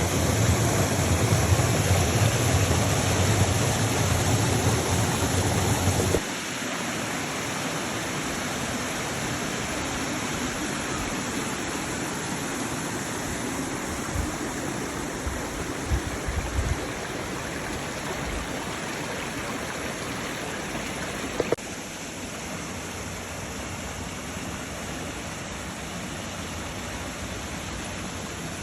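Steady rush of running water. It is louder with a deep rumble for the first six seconds, then settles to an even, slightly quieter rush, dropping a little again about 21 seconds in.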